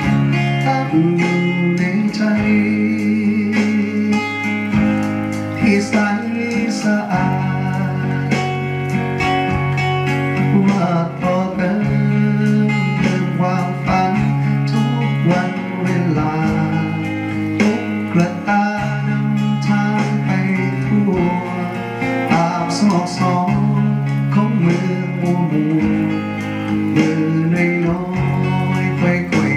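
Recorded music played back through a home-built loudspeaker, with guitar to the fore over steady bass notes and no sung words. The speaker's bass and treble are set to the middle and the subwoofer is turned down.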